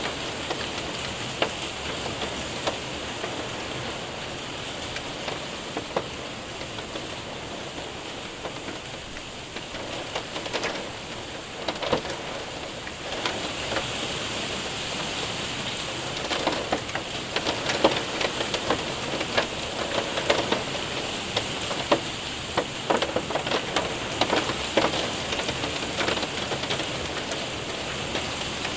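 Rain and hail hitting a window and roof: a steady wash of rain with many sharp ticks of hailstones striking, thicker and louder in the second half.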